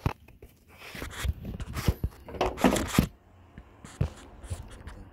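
Handling noise: a few sharp clicks and knocks, with a louder rustling scrape from about one to three seconds in, as tools and parts are worked around the serpentine belt pulleys.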